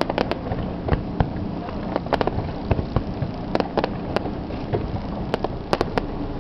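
Fireworks finale: rapid, irregular cracks and bangs of bursting shells over a continuous low rumble.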